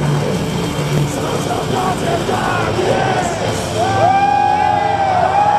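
Live black metal concert through a phone's microphone: the crowd yells and cheers, and about four seconds in a long note slides up and then holds steady.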